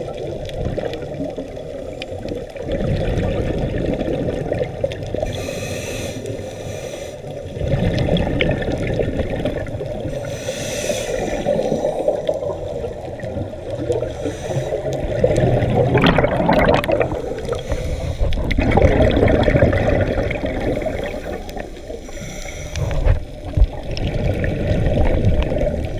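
Scuba regulator breathing heard underwater: exhaled air bubbles gurgling and rumbling in surges every few seconds, with fainter hissing breaths between them.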